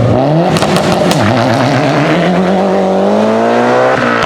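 Competition car engine under hard acceleration, its note climbing steadily, with a few sharp exhaust pops about half a second to a second in. The pitch drops sharply near the end, as at a gear change.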